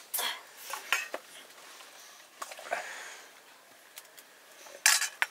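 Metal spoon scraping and clinking against a steel plate while eating rice: a string of short scrapes and clicks, the loudest near the end.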